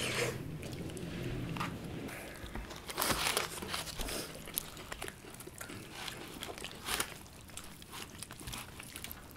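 Eating sounds: chewing, and meat and gristle on boiled sheep heads being torn apart by hand, with small clicks and scrapes. A louder tearing comes about three seconds in and a sharp snap near seven seconds.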